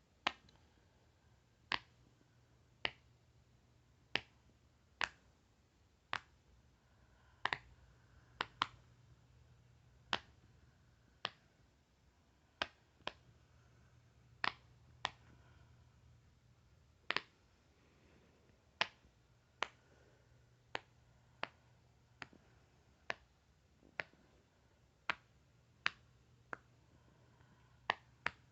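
A long run of sharp, crisp single pops at uneven spacing of roughly one a second, some in quick pairs, each cut off at once.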